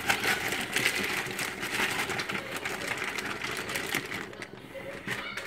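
Mixed vegetables (peas, corn and diced carrot) tipped from a plastic bag into a steel pot: the bag crinkles and the pieces clatter in a rapid stream of small clicks. It thins out about four seconds in.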